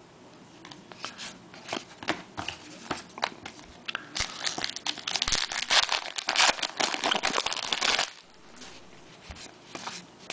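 Trading card pack's foil wrapper crinkling as it is torn open and handled. It starts with scattered light crackles, turns into dense crinkling from about four seconds in, and stops abruptly about eight seconds in.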